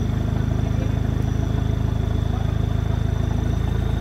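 Off-road 4x4's engine running steadily at low revs, a close, even beat of firing pulses with no revving.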